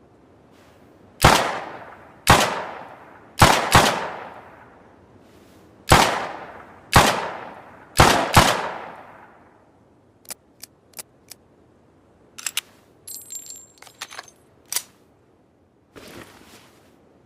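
Makeshift revolver sound effect: eight sharp gunshot-like bangs, each with a long decaying echo, some fired in quick pairs. After them come a few light clicks and a short metallic rattle.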